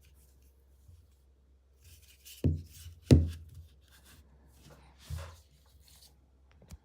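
Hands handling a power bank and its packaging: rustling and rubbing with three dull thumps, the loudest a little after three seconds in, and a sharp click near the end.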